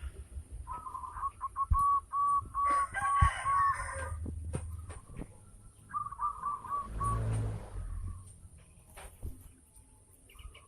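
Zebra dove (perkutut) cooing: a run of short, evenly spaced notes starting about a second in, then a shorter run a little past the middle. A harsher call from another bird overlaps the first run about three seconds in.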